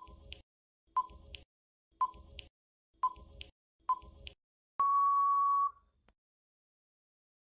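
Electronic countdown timer beeps: five short beeps about a second apart, then one longer final beep.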